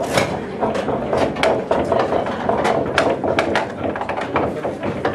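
Pool balls clacking at irregular intervals, several knocks a second, over a steady murmur of voices in a busy pool hall.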